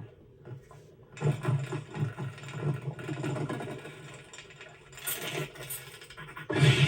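Animated-film sound effects from a bird chase: a fast, rattling flutter and scramble that starts about a second in, with a loud burst near the end.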